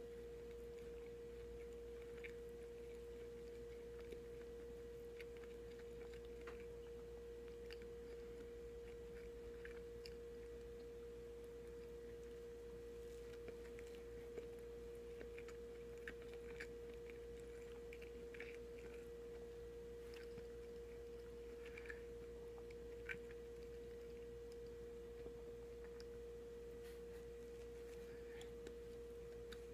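Soft chewing of a sandwich, with faint moist mouth clicks scattered through, more of them about halfway in. A steady hum tone runs underneath.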